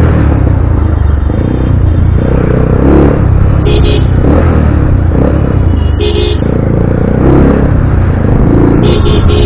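Bajaj Pulsar 220's single-cylinder engine running through an aftermarket SC Project exhaust while being ridden in traffic, a loud low rumble. Short horn honks sound about four seconds in, about six seconds in, and near the end.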